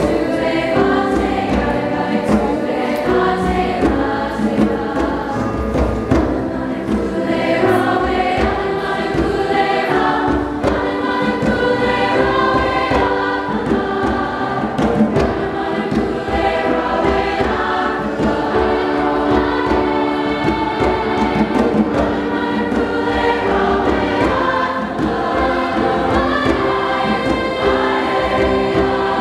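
School choir of girls' and boys' voices singing together in several parts, under a conductor.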